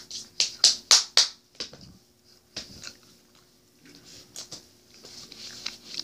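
A person chewing a big bite of Warheads candy: a quick run of sharp, wet mouth smacks in the first second and a half, a few more after, then fainter chewing.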